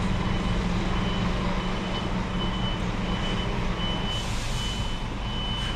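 Scania R-series truck's reversing alarm sounding a steady run of high beeps over the diesel engine running, with a short hiss about four seconds in.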